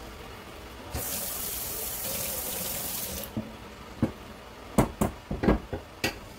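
A kitchen tap runs for about two seconds with a steady hiss and then shuts off. A second or so later come several sharp clacks and knocks from a metal garlic press being squeezed over a wooden cutting board.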